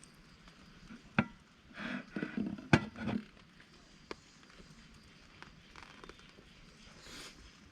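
Close handling sounds: a sharp click or knock about a second in, rustling, and a second loud knock near three seconds, then a smaller click.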